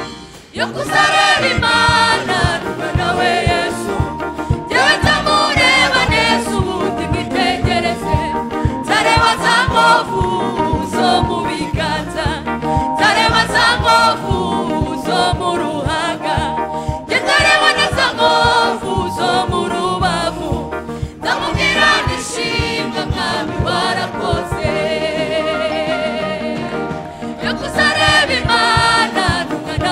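Gospel song: voices singing over backing music, in sung phrases a few seconds long.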